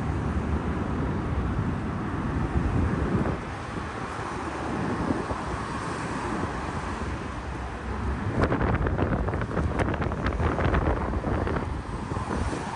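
Steady rumble of road traffic with wind buffeting the microphone. A run of sharp, irregular clattering knocks comes a little over halfway through and lasts about three seconds.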